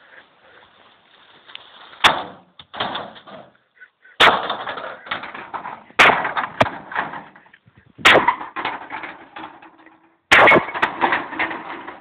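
Sledgehammer striking the metal casing of a tumble dryer: five heavy blows about two seconds apart, each followed by about a second of clatter.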